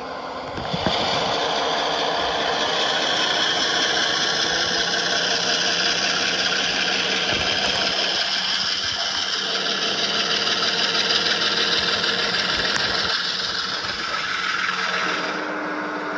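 Diesel engine sound from a sound-equipped HO scale model of a GE ES40DC locomotive, running steadily as the model moves. It steps up in level about a second in and drops back shortly before the end.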